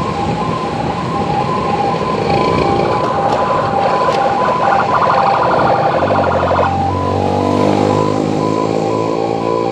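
A vehicle's electronic siren alternating between two pitches in quick pulses, with a louder, fuller pitched blast over it in the middle that cuts off suddenly, followed by a low hum.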